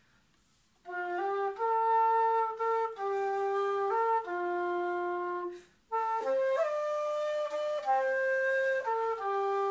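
Bamboo dongxiao (vertical end-blown flute) in F playing a slow melody of held notes that step up and down. It starts about a second in, and two phrases are split by a short breath about six seconds in.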